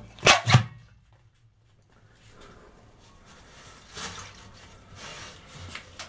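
Two sharp knocks about half a second in, then faint rubbing and scraping as a hand reaches into the open pressure tank of a water pump station and grips its rubber bladder.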